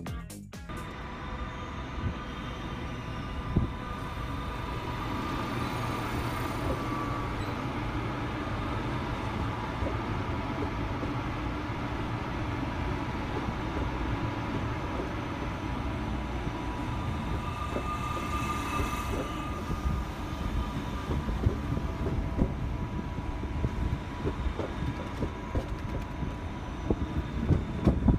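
Siemens Desiro ML (class 460) electric multiple-unit train at a station platform: a steady rumble of the train's running and motor noise with a faint steady electric whine over it.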